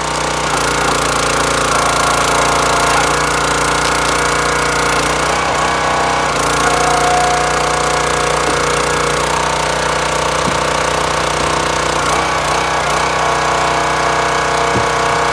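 Small gas engine of a hydraulic log splitter running steadily while the ram drives an ash round into a four-way wedge, with a couple of light knocks in the second half.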